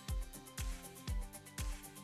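Upbeat corporate-style stock background music with a steady kick-drum beat, about two beats a second, under sustained pitched notes.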